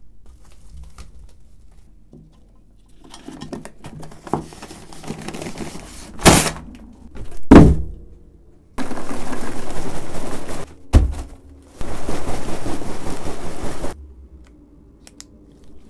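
Packing a cardboard box: rustling of wrapping material, two heavy thuds as things go into the box, then two long rasping pulls of packing tape, each about two seconds, with a thump between them.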